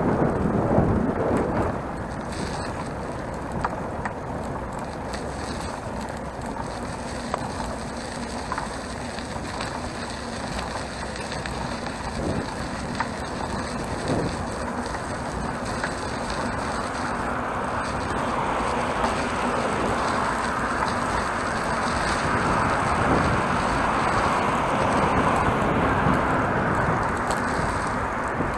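Steady rolling and riding noise from a single-speed bicycle on a paved bike path, heard from a camera mounted on the handlebars. The rumble grows louder about two-thirds of the way through.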